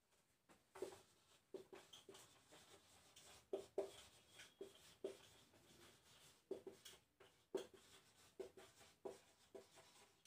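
Marker pen writing on a whiteboard: a faint string of short, irregular strokes as letters are written.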